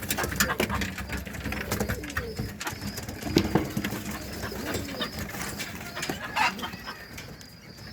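Domestic pigeons cooing in a loft, low rolling calls one after another, with scattered clicks and rustling from the birds and the feeding.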